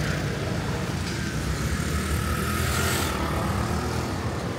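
A motor vehicle passing close by, a steady low engine rumble with tyre hiss that fades about three seconds in.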